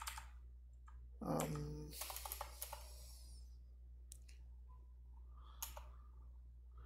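Computer keyboard typing: a few scattered, faint key clicks as a terminal command is typed and corrected.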